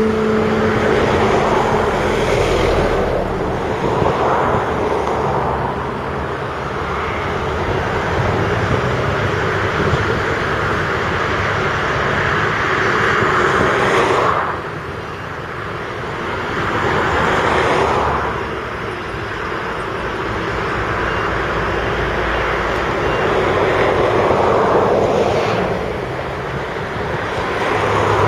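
Heavy diesel earthmoving machinery at work: a tracked excavator and a Volvo six-wheel articulated dump truck running, their engines rising and falling in swells as they work under load. The sound drops suddenly about halfway through, then builds again.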